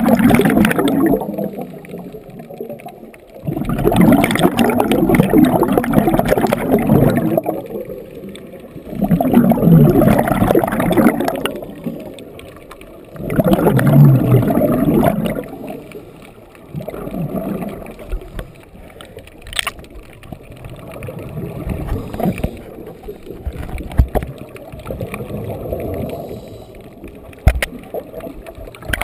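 Scuba diver breathing through a regulator underwater: bursts of exhaled bubbles gurgling every four to five seconds, growing fainter in the second half.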